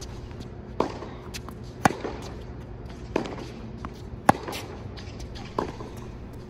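Tennis rally on a hard court: sharp pops of racket strings striking the ball and the ball bouncing, about one every second, with the loudest hits coming from the near player's backhand and forehand.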